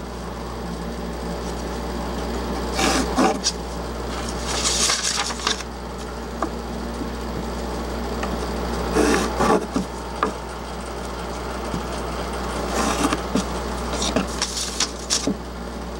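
Pencil scratching on plywood in about five short bursts of strokes a few seconds apart, over a steady low hum.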